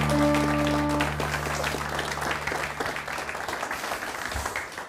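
Studio audience applauding over a short music sting. The sting's held chord breaks off about a second in, and the applause thins out toward the end.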